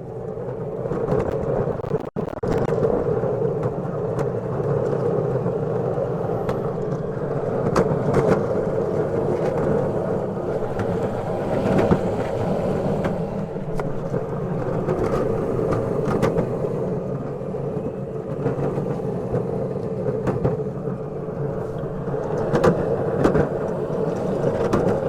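Electric go-kart driving, its motor giving a steady whine over tyre and road noise, with occasional knocks.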